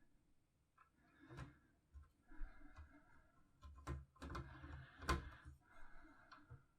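Faint, irregular clicks and taps of small plastic Lego minifigure parts being handled, about half a dozen, the sharpest about five seconds in, over light rustling.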